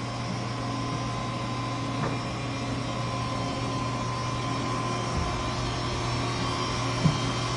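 1994 Haas VF-2 CNC vertical machining center running with its spindle at 1500 RPM: a steady hum with a thin, even whine above it as the X, Y and Z axes move, and a couple of faint clicks.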